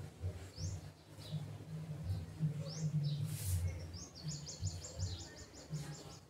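Small birds chirping in short rising notes, then a fast, even trill of short high notes for about two seconds near the end, over a low rumble.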